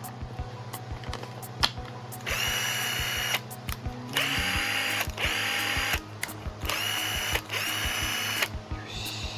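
Makita TD090D 10.8V cordless impact driver running with no load, triggered about five times in short bursts. Each run starts with a quickly rising whine that then holds steady, with no hammering from the impact mechanism.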